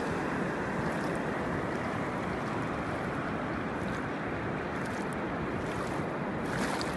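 Muddy floodwater rushing steadily across a road, a continuous roar of moving water.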